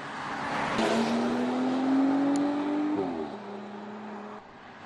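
Porsche Panamera driving past under acceleration: the engine note climbs steadily, drops with an upshift about three seconds in, then runs on at a lower pitch until it cuts off near the end, with a swell of tyre and wind noise as it passes.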